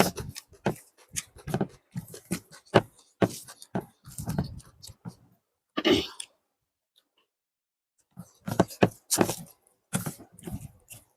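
Close-miked chewing and wet mouth sounds of eating biryani and chicken curry: rapid smacks and clicks with soft low thuds, a breathy burst about halfway through, then a short pause before the chewing resumes.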